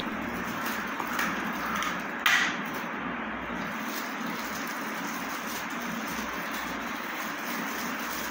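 Silver foil gift wrap being slit with a box cutter and pulled open by hand, crinkling, with one short louder rustle about two seconds in, over a steady hiss.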